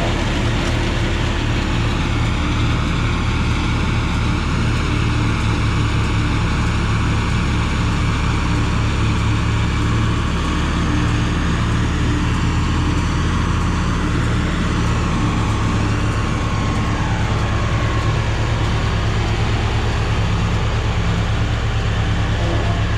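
John Deere tractor's diesel engine running steadily under load while driving a forage harvester that is chopping alfalfa. The engine note shifts slightly about two-thirds of the way through.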